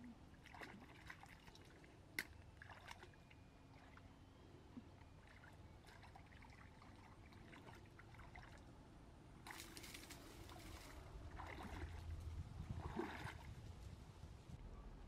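Hands working in shallow stream water: faint trickling and small splashes with scattered light clicks, one sharp click about two seconds in, and louder stretches of splashing in the second half.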